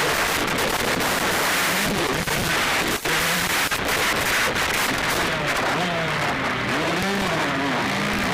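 Motocross bikes' engines revving on the track, buried in heavy crackling noise on the microphone. The engine pitch rises and falls repeatedly in the second half.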